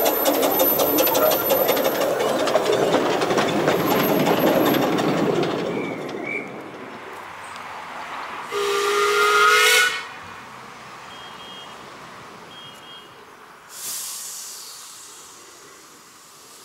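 Miniature-railway steam locomotive running past close with a fast, even clatter for the first five seconds or so, then fading. About eight and a half seconds in, its steam whistle gives one blast of about a second and a half, and a burst of steam hiss rises and fades near the end.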